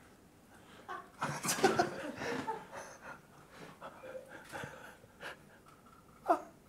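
Soft, tense breathing and stifled laughter from two men, with a short vocal sound near the end.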